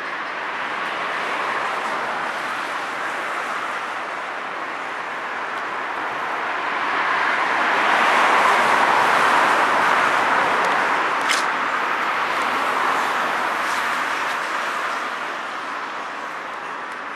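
Road traffic passing close by: a steady tyre hiss that swells to its loudest as a vehicle goes past about halfway through, then dies away. There is one sharp click shortly after the peak.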